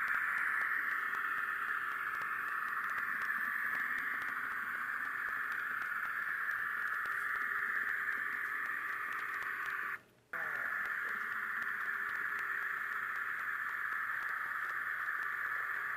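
Steady rushing hiss of an On30 model train running along the track, with a faint low hum underneath. The sound cuts out for a moment about ten seconds in.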